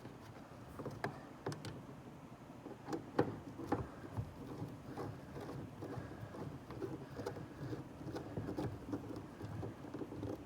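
Plastic sail panel trim being handled and fitted inside a third-generation Camaro's interior: irregular light clicks, knocks and rubbing, with a cluster of sharper knocks one to four seconds in.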